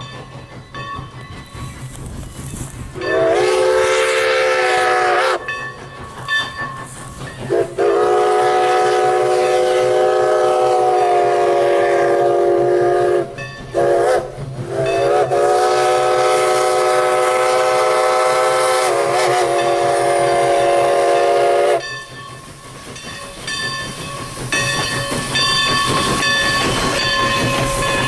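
Steam locomotive No. 11's whistle blowing the grade-crossing signal: two long blasts, a short one and a final long one. Then the locomotive and its coaches pass close by, the running noise rising near the end.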